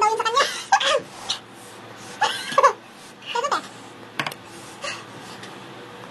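A woman laughing and letting out short wailing cries and gasps, a reaction to the burning heat of spicy noodles. A single light click about four seconds in.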